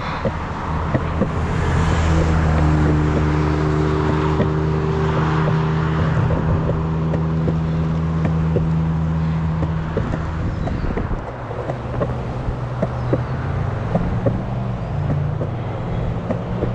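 Sector 9 skateboard wheels rolling over a concrete sidewalk, a steady low hum broken by many sharp clicks as the wheels cross the pavement seams. Cars pass on the road alongside.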